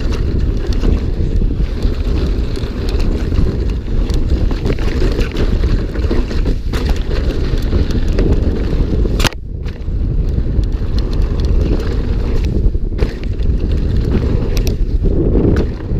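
Wind buffeting the microphone as a mountain bike rides down a trail at speed, with the bike's constant rattle and clatter over rough ground. A sharp knock comes about nine seconds in.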